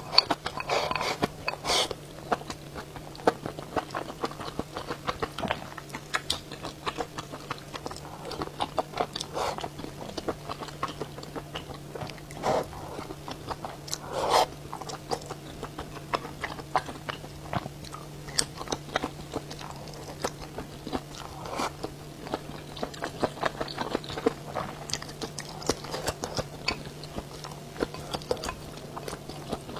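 Close-miked chewing and biting of mala xiang guo and rice: a dense, irregular run of mouth clicks and smacks, a few sharper bites standing out about halfway through. A steady low hum sits underneath.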